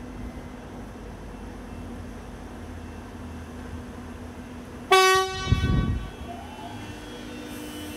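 A train horn sounding one short, loud blast about five seconds in, over a steady low hum, with a low rumble just after the blast.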